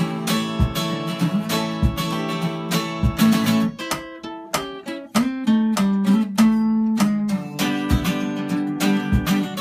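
Three acoustic guitars playing together, strumming chords with a low thump marking the beat. About four seconds in, the strumming thins to a few picked single notes, then the full strumming returns near the end.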